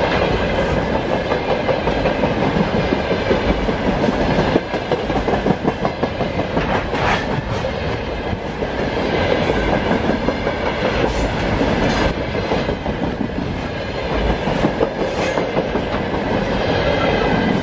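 Loaded freight wagons of a broad-gauge (1520 mm) train rolling past, steady and loud, their wheels clacking rhythmically over the rail joints, with a few sharper clanks along the way.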